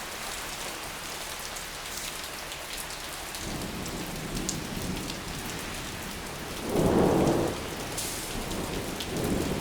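Heavy rain pouring steadily, with thunder rumbling in about three and a half seconds in and swelling to its loudest about seven seconds in, then a smaller swell near the end.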